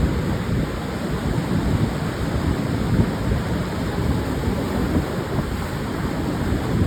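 Pacific surf breaking and washing on a wide sandy beach, a steady dense rush with a heavy rumbling low end. Wind gusts buffet the microphone throughout.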